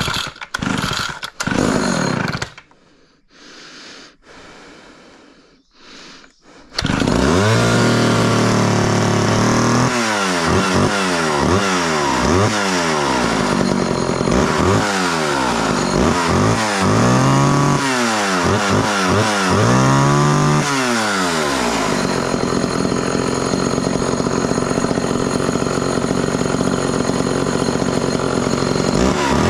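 Homelite Super XL two-stroke chainsaw cold-started: a few pulls on the starter cord, then the engine catches about seven seconds in. It idles briefly, is revved up and down repeatedly, then runs steadily at high revs near the end.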